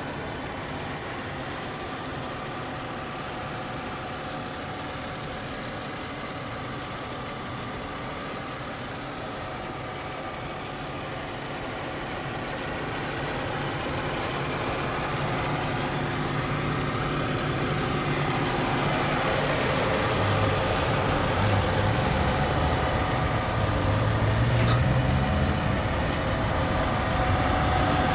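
BMW E46 320i's 2.0-litre M52 24-valve inline-six idling steadily, heard close up in the open engine bay. It grows louder over the second half.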